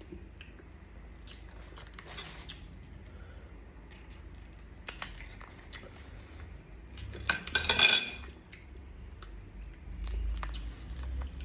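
Scattered clicks and clinks of crab shells and dishes being handled while eating marinated mud crab, with a louder clattering burst about eight seconds in.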